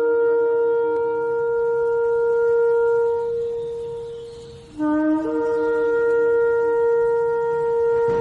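Shofar sounding two long blasts. Each starts on a low note and steps up to a held higher note, and the second blast begins about five seconds in.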